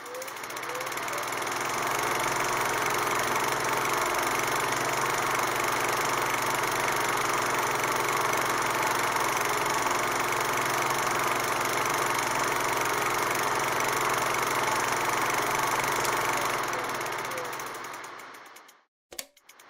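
Steady mechanical running noise with a rattle, the sound of a film projector running. It fades in over the first two seconds and fades out a couple of seconds before the end.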